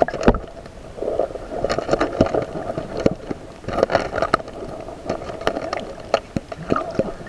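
Underwater sound heard through an action camera's waterproof housing: a muffled, steady wash of water with scattered sharp clicks and knocks.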